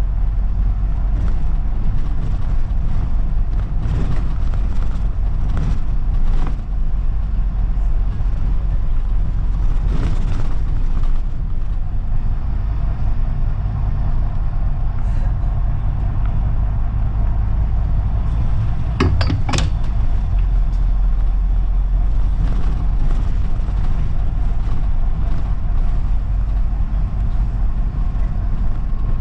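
London bus heard from on board while driving along: a steady low engine and road rumble, with light rattles and a short burst of sharp clatter about two-thirds of the way through.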